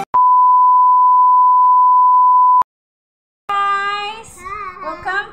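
A loud steady electronic beep, one pure tone held for about two and a half seconds, cut off with a click. After a short silence a child's voice starts in a sing-song.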